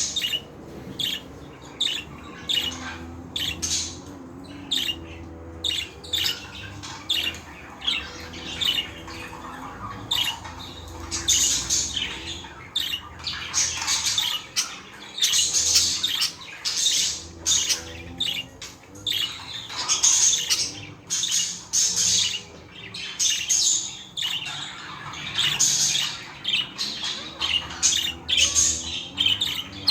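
Budgerigars (budgies) chattering, with a constant stream of rapid, sharp chirps and squawks.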